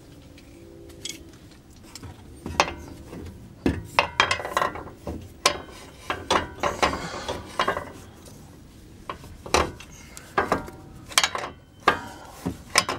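Irregular metallic knocks, clunks and rattles as a new front strut and coil-spring assembly is worked by hand up into the wheel well, bumping against the knuckle and control arm. Some strikes ring briefly.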